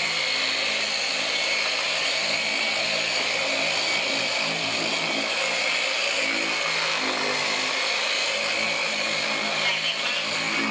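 Handheld electric polisher with a foam pad running steadily while buffing car paint, a continuous motor whir with a hiss from the pad on the panel.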